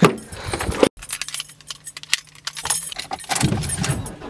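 A key ring with a remote car key jangles and clinks as the driver's door of a Mazda BT-50 ute is opened and the driver climbs in, with clicks and knocks of handling. About a second in the sound cuts off suddenly, then picks up again inside the cab.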